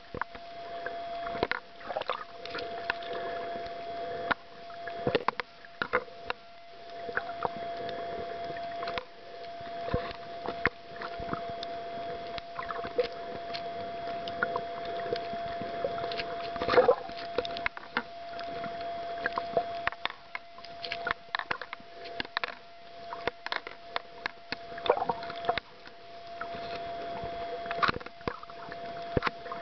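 Underwater sound through a camera's waterproof housing: a steady hum under irregular clicks, crackles and pops, with one louder pop a little past halfway.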